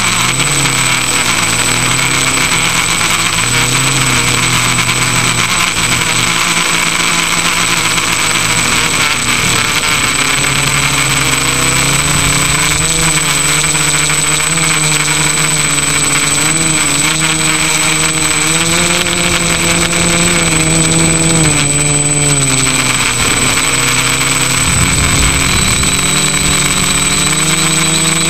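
Electric motor and propeller of an FPV model aircraft, heard from its onboard camera: a loud, steady whine whose pitch rises and falls as the throttle changes, over a constant rush of air.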